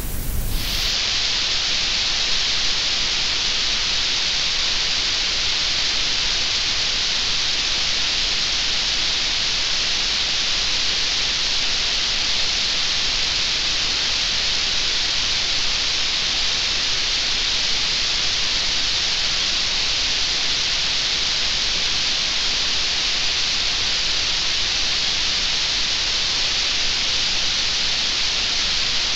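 A steady, even hiss that starts abruptly and then holds unchanged throughout, brightest in the upper range.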